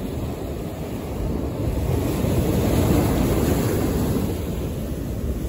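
Ocean surf washing against rock jetty boulders, mixed with wind buffeting the microphone. The rush swells about two seconds in and eases off again.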